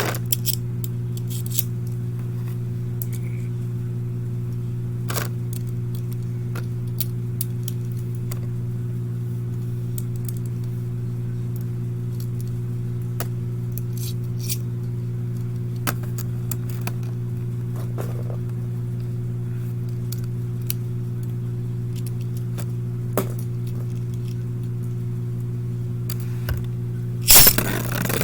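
A steady low hum that never changes pitch, with scattered faint clicks and ticks. A loud clattering burst comes in near the end.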